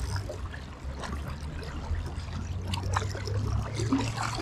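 River water running, with a steady low rumble and scattered short clicks.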